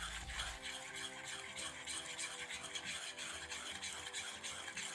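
Wire hand whisk beating wheat flour into melted jaggery syrup in a bowl, a quick, even run of scraping strokes as the sweet batter for gulgule is mixed.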